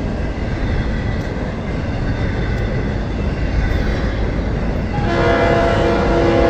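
Freight train rumbling along the rails. About five seconds in, a diesel locomotive's horn starts sounding, a chord of several notes held steady.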